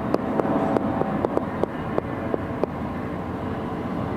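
Steady background hubbub with a string of irregular sharp clicks, about ten in the first three seconds and fewer after.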